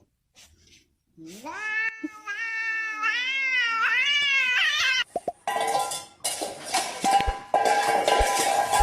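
A domestic cat giving one long, drawn-out meowing yowl that rises and then wavers in pitch for about three seconds. Later a louder, noisy sound with a steady held tone takes over.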